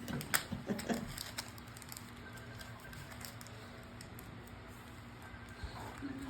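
A few light taps and clicks of small things being handled close to the microphone in the first second or so, then a faint steady room hum.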